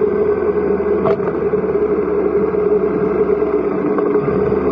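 Motorcycle engine running at a steady pitch while riding, picked up by a camera mounted on the bike, with a short click about a second in.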